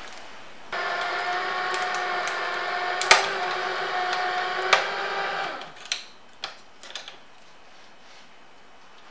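Electric can opener running, a steady motor hum for about five seconds as it cuts around the lid of a can, with a sharp click partway through. The motor then stops, followed by a few light clicks.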